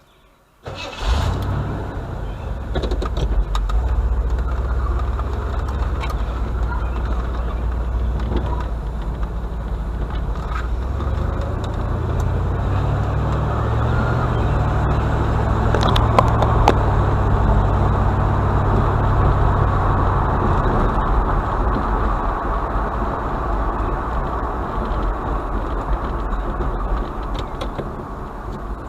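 A car or truck engine that comes on suddenly about a second in and then runs steadily with a low, even hum.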